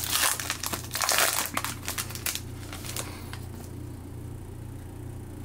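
Plastic foil wrapper of a football trading card pack crinkling as it is ripped open, for about two and a half seconds, then dying down to a few light clicks.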